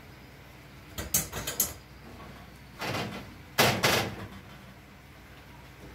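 A utensil clinking against a frying pan as spaghetti is stirred, a quick run of clinks about a second in, then two longer scraping clatters of the pan on the gas stove, the second the loudest.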